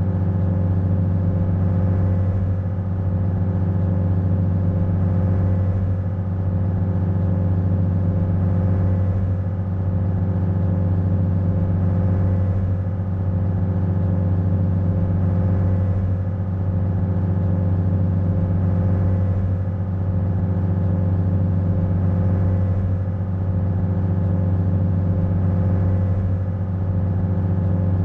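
The ferry's engine running steadily under way, a loud low drone with a hum that swells slightly about every three and a half seconds.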